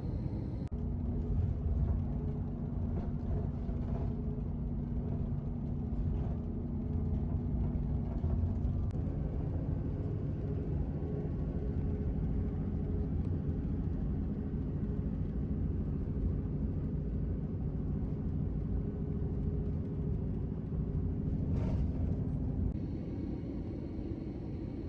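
A vehicle running steadily: a low rumble with a steady engine or motor hum. The hum starts abruptly just under a second in, steps up slightly in pitch around nine seconds, and cuts off shortly before the end.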